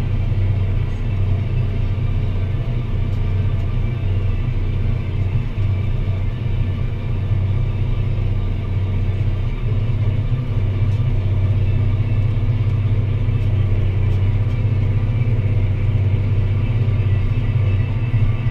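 Deutz-Fahr Agrotron 165 MK3 tractor's six-cylinder diesel engine running steadily under load while pulling a plough, a constant low hum with no change in engine speed.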